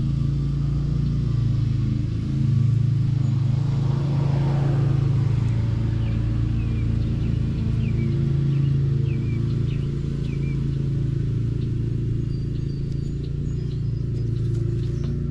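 Steady low drone of an engine running, holding an even pitch throughout, with a few faint short chirps above it midway.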